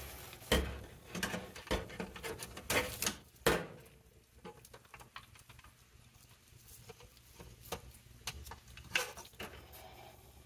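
Gloved hands handling the wiring and plastic connectors of an oven's electronic control board: scattered clicks, taps and rustles, busy for the first few seconds, then sparser.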